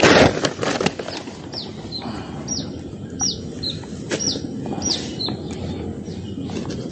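A bird calling over and over, a run of short, high notes that each slide downward, about two a second. A burst of rustling in the first second is the loudest sound, with a few sharp clicks later on.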